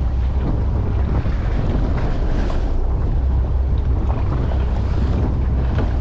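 Wind buffeting the microphone on a boat at sea, a steady loud low rumble over the noise of water.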